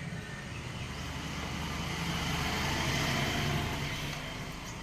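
A road vehicle passing by: engine and road noise swell to a peak about three seconds in, then fade away.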